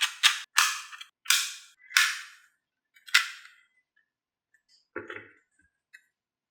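Marbles clacking down a HABA wooden marble run: a quick string of sharp clicks that thins out over the first three seconds, then one softer knock about five seconds in.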